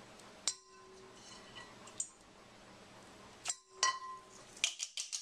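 Metal kitchenware clinking: a wire mesh strainer knocks against an enamel colander and a bowl in four sharp clinks that each ring briefly. A fast rattle of small clicks starts about four and a half seconds in, as the colander holding the broccoli and pieces of ice is handled.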